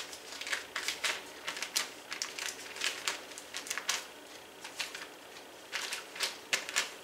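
Butter stick's paper wrapper crinkling in many short, irregular crackles as it is handled and the butter is pushed off it with a spatula.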